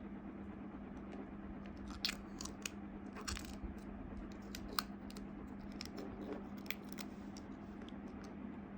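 Scattered small clicks and crackles from hands handling small hardware parts, over a steady low hum.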